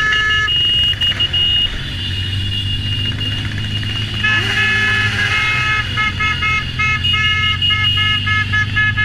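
Vehicle horns sounding over the low running of motorcycle engines: one horn is held for the first second or so, then from about four seconds in horns beep in quick repeated toots.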